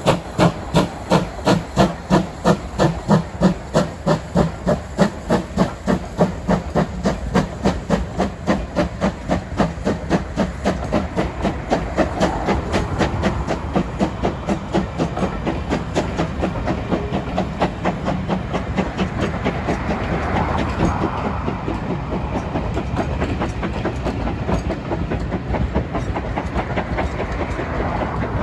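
LMS Ivatt Class 2 2-6-0 steam locomotive 46521 working a passenger train away, its exhaust beats quickening and fading as it pulls off. The rumble and clickety-clack of its coaches rolling past follow.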